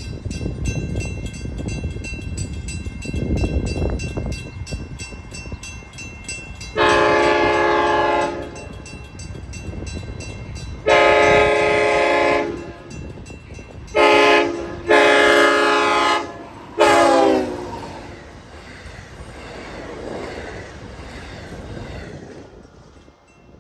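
Long Island Rail Road train sounding its horn: two long blasts, a short one, a long one and a final short one. Under it the train passes with a low rumble that fades out near the end.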